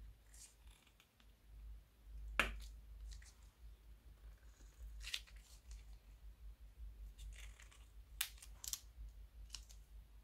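Faint, scattered crackly pops and clicks as slime is squeezed out of a plastic piping bag into a bowl, with one sharper click about two and a half seconds in.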